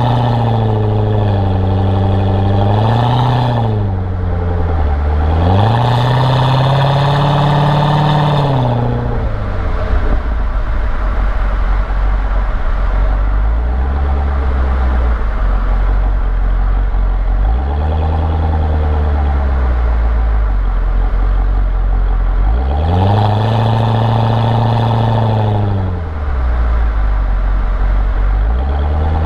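Chevrolet C6 Corvette's V8 engine being revved in neutral: several throttle blips, each rising, holding for a second or two and falling back. Between them is a long stretch of idle in the middle with a couple of small blips.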